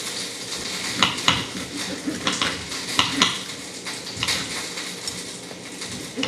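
Knife and fork cutting into a cooked chicken steak on a plate: several sharp scrapes and clinks of cutlery against the plate, over a steady hiss.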